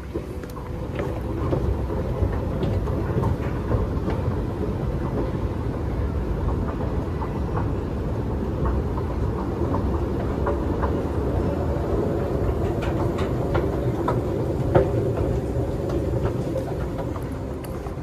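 Escalator running under a rider: a steady low mechanical rumble with scattered light clicks. It becomes louder about a second in and fades near the end as the ride finishes.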